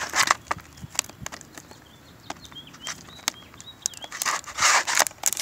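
Plastic wrapping on a Blu-ray case crinkling and tearing as fingers pick at it. The noise comes in bursts near the start and again about four seconds in, with scattered clicks between.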